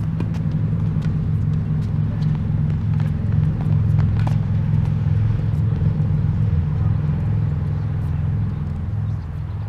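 Steady low engine hum throughout, with a few sharp taps of tennis balls being struck and bouncing on the hard court.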